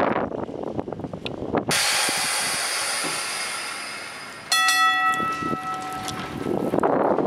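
A vintage double-saloon tram's air system lets out a sudden loud hiss that fades over about three seconds. Then its gong is struck once and rings out with a clear, fading tone, and a rumble rises near the end as the tram moves off.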